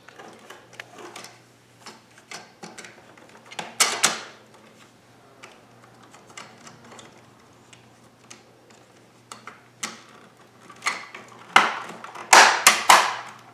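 Plastic clicks and knocks of a replacement power switch and its wiring being fitted into a Dyson DC14 vacuum's plastic housing, with a sharp clatter about four seconds in and a run of loud clicks near the end as the switch snaps into place.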